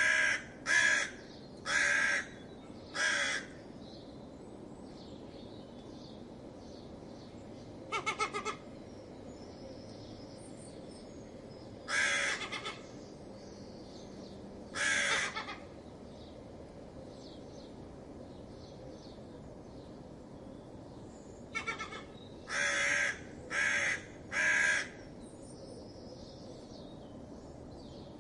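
Fox barking: harsh short calls in irregular series. Four come in the first three seconds, a stuttering one about eight seconds in, single calls around twelve and fifteen seconds, and a closing group of a stuttering call and three quick barks over steady background hiss.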